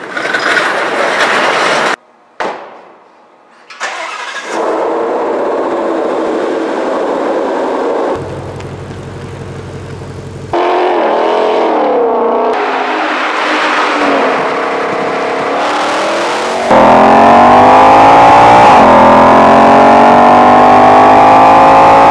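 The supercharged 5.2-litre V8 of a Ford Mustang Shelby GT500, heard in cut-together pieces: short bursts, then a low idle rumble, then blips of the throttle, and finally hard acceleration with the pitch rising steadily. Near the loudest stretch the pitch drops sharply once and climbs again, a quick upshift.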